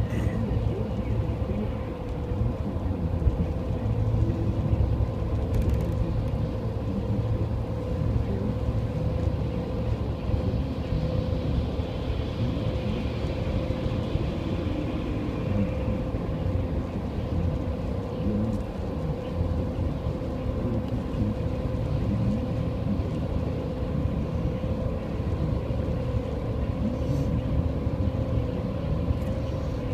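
A car driving, heard from inside the cabin: steady engine and road rumble with a constant hum. A faint hiss swells and fades around the middle.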